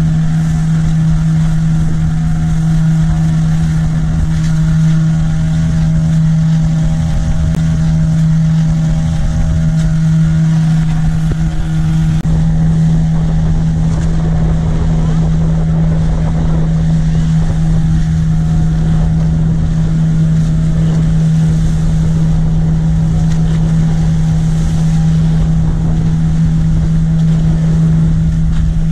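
Boat engine running steadily at a constant speed, with a low hum and the rush of water and wind beneath it; the higher engine tones shift slightly about twelve seconds in.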